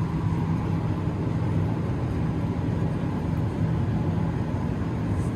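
Steady low mechanical hum of a running engine, holding an even pitch.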